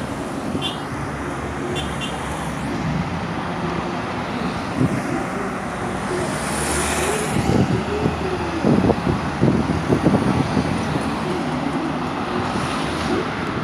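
Traffic on a busy road: cars and other motor vehicles passing steadily, one passing close around the middle.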